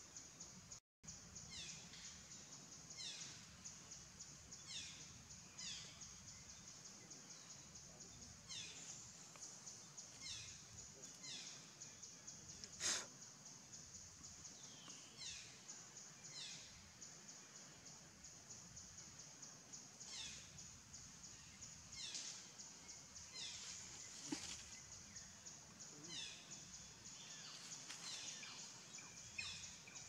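Faint outdoor ambience: a steady high-pitched buzz, with short falling bird calls repeating every second or two, and a single sharp click about halfway through.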